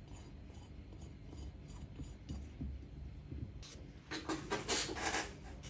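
Small metal carburetor parts being handled and fitted by hand: faint light clicks and rubbing, then a louder scraping rasp for a second or so near the end.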